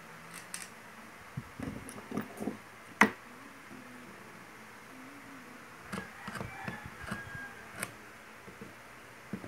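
Small clicks and taps of a thin metal tool against an electric drill's armature and plastic housing as grease is worked onto the gear, with a sharper click about three seconds in.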